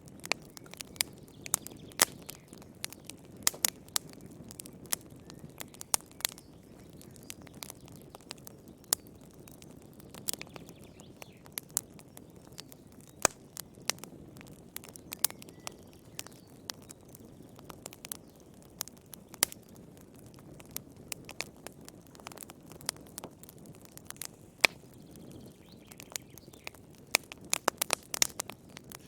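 Wood fire burning in a fireplace: a soft low rumble with irregular sharp crackles and pops, coming thicker in a quick run near the end.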